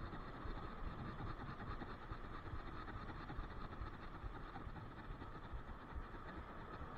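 A conventional fishing reel being cranked steadily to retrieve line, its gears giving a rapid, even ticking whir over a low steady rumble.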